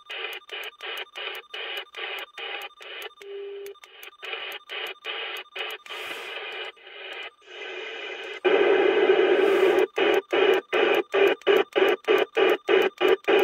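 President McKinley CB radio's speaker playing band static as the channel knob is stepped through channel after channel. The hiss, with faint steady heterodyne tones, cuts out briefly at each step, a few times a second and faster near the end. About two-thirds in, with the radio switched from USB to FM, the hiss gets louder and fuller.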